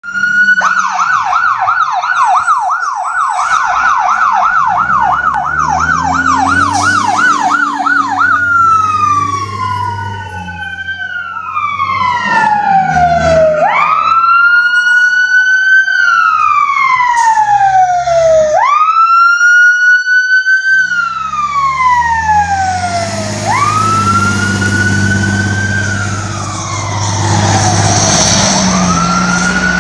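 Fire trucks' electronic sirens. A fast yelp of about three rising-and-falling cycles a second switches about eight seconds in to a slow wail that climbs quickly and sinks over about four seconds, again and again. Underneath is the low rumble of the trucks' engines as they pull away.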